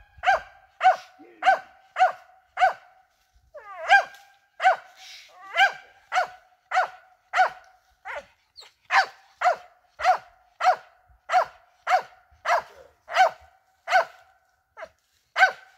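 Squirrel hunting dog barking steadily in a long, even run of sharp single barks of one pitch, about one and a half to two a second, with a short break about three seconds in: the steady chop of a squirrel dog barking treed.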